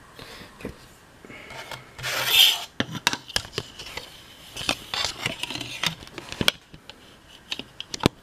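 Handling noise as a camera is set up and propped on a wooden desk: a loud rubbing rasp about two seconds in, then a run of light clicks and knocks as it is shifted into place.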